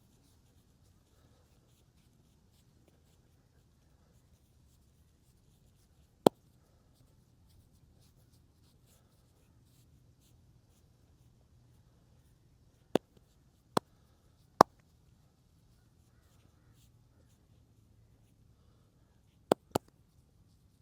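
Faint rubbing of hands over skin during a massage, broken by six sharp, loud cracks: one about six seconds in, three spaced under a second apart around thirteen to fifteen seconds, and a quick pair near the end.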